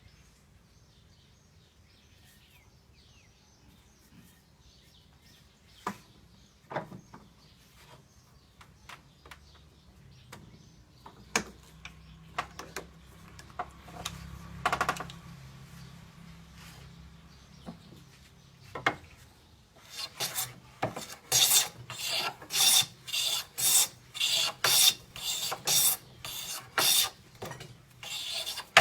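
Homemade wooden hand plane with a 50-degree blade bed shaving Burma padauk (pradu) wood: a short shearing hiss with each stroke. After some scattered knocks and a few single strokes, the planing settles about two-thirds in into a steady run of about two strokes a second.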